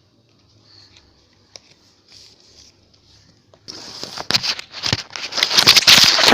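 Faint small handling sounds, then from about four seconds in loud, close rustling and crinkling with many short clicks, as of plastic or a toy being handled right at the microphone.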